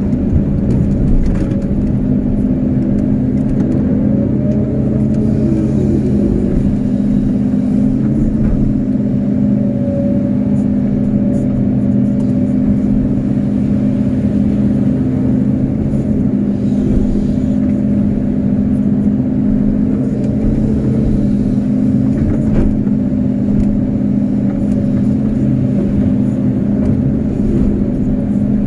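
Kobelco SK250-8 excavator's diesel engine running steadily under working load while the boom and bucket dig, with a brief rising-then-falling whine about four seconds in.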